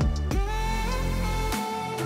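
Background music: held notes over a deep bass, with two sharp hits that fall in pitch.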